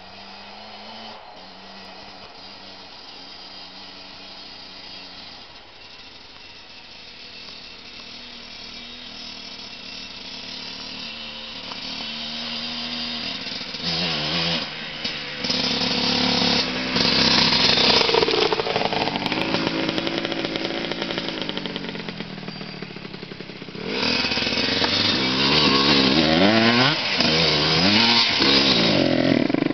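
Dirt bike engine approaching from a distance and getting steadily louder, then revving up and down repeatedly as it rides close by, with a loud stretch of rising and falling revs near the end.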